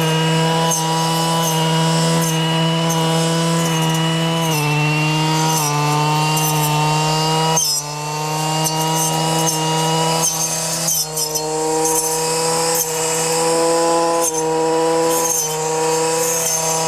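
Two-stroke brush cutter with a metal blade running at high revs as it cuts through cannabis plants, its engine pitch dipping and recovering several times as the blade meets the stalks.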